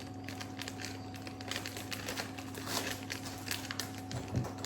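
Small clicks and light crinkling of things being handled on a kitchen counter, scattered and irregular, over a steady low hum.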